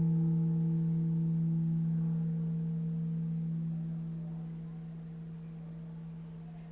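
Singing bowl ringing out after a strike and slowly fading. A low steady tone carries on throughout, while its higher overtones, one of them wavering, die away within the first few seconds.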